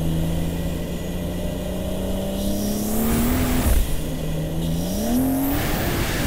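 Tuned big-turbo BMW M240i's turbocharged straight-six pulling under throttle, its note climbing steadily for about three and a half seconds. It breaks off briefly with a short noisy burst, then climbs again more quickly.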